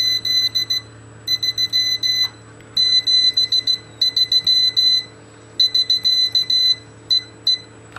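Electronic keyer sidetone beeping out Morse code in short groups of dots and dashes as a paddle key is worked, a high square-ish tone keying on and off with gaps between characters.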